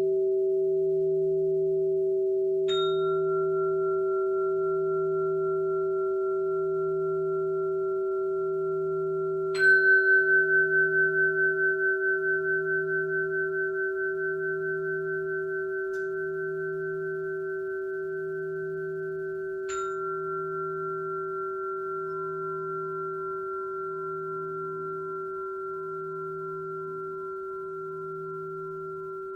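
Struck metal sound-healing instruments ringing: a steady low tone with a slow throb beneath it, and three fresh strikes, about 3, 10 and 20 seconds in. Each strike leaves a long, pure, higher tone that slowly fades; the one about 10 seconds in is the loudest.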